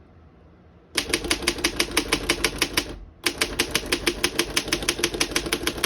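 1912 Underwood No. 5 manual typewriter being typed on, its type bars striking the platen in a fast, even run of about ten keystrokes a second. The run starts about a second in and breaks briefly around the three-second mark.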